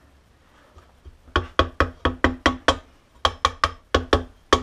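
A mallet tapping the rear sprocket carrier of a Honda CB350 wheel hub, seating it evenly into the hub's rubber cush dampers. The taps are sharp, quick knocks, about four or five a second, in two runs with a short pause near the middle.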